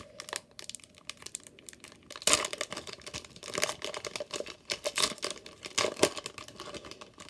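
Foil trading card pack being torn open and crinkled by hand, in irregular crackling bursts with a few louder rips.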